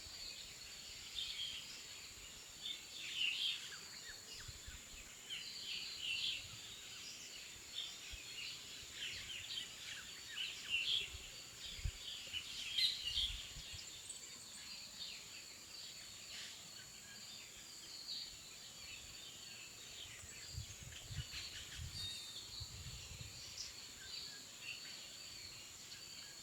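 Outdoor ambience of many small birds chirping and twittering, over a steady high-pitched whine, with occasional low rumbles.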